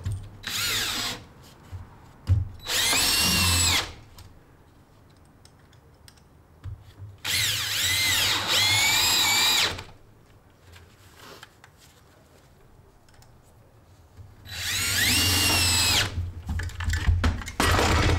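Cordless drill driving screws into wooden floor blocking in several separate runs of one to two seconds. With each run the motor whine rises in pitch and then falls as the screw seats.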